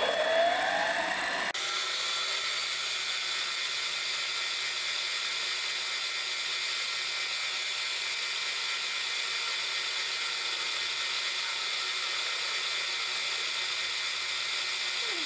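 Mini-lathe starting up, its motor whine rising in pitch over the first second or so, then running steadily at speed with a four-jaw chuck turning a cylinder block blank ready for facing.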